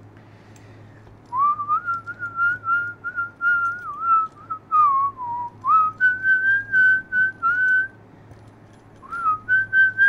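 A person whistling a tune: a run of short notes that waver in pitch, starting about a second in, breaking off briefly near the end, then carrying on.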